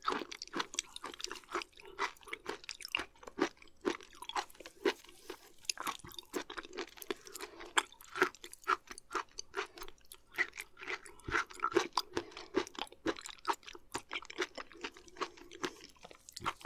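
Close-miked wet chewing of raw beef offal (liver and omasum), with many irregular small clicks and lip smacks, several a second.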